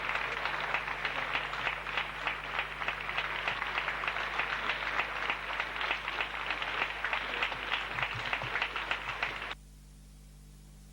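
Audience applauding, a dense even clapping that cuts off abruptly about nine and a half seconds in, leaving a faint steady hum.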